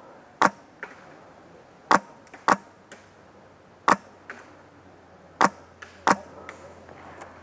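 Airsoft guns firing single shots at an irregular pace: six loud sharp cracks with fainter ones between them.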